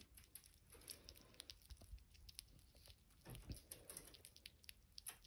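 Sugar glider chewing on sugarcane: faint, irregular small clicks and crunches.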